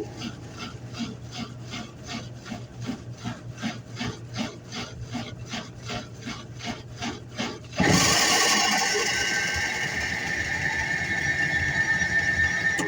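Washing machine with a failing transmission running: a regular scraping, rubbing beat about three strokes a second. About eight seconds in, a sudden louder, steady whir with a high whine takes over.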